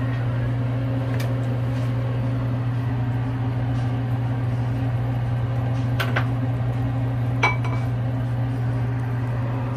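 Steady low hum of a running kitchen appliance, with a few light clinks of a cooking utensil against a metal pan about six and seven and a half seconds in.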